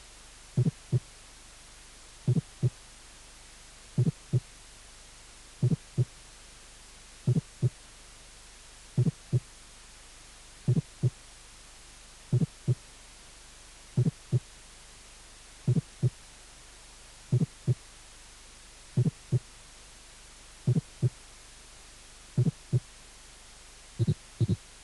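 Recorded heartbeat, slow and regular, one beat about every 1.7 seconds, each beat a quick pair of low thuds over a steady low hum. It is the teaching example of a fourth heart sound (S4, atrial gallop).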